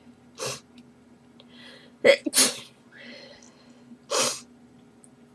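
A girl sneezing in a rapid fit: about four sharp sneezes, two of them in quick succession, with short in-breaths between them.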